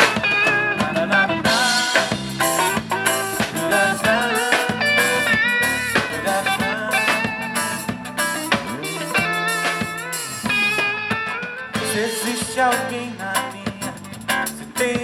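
Instrumental introduction of a pop song played by a band: guitar with bass and drums keeping a steady beat, and a melodic lead line on top.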